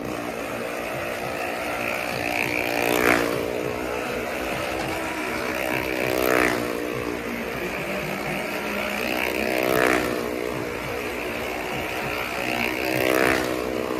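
Motorcycle engine running steadily at high revs as the bike circles the wooden wall of a well-of-death drum, swelling into a louder rush each time it sweeps past, about every three and a half seconds.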